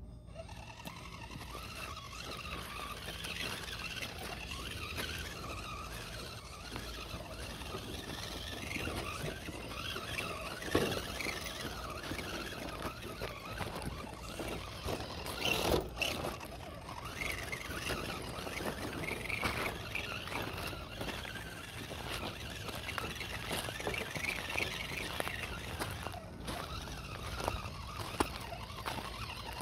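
1/10-scale RGT Jeep Rubicon RC rock crawler driving over loose rock: its electric motor and gear drive whine, rising and falling with the throttle. There are a few sharp knocks of the truck against stones, the loudest about a third of the way and about halfway through.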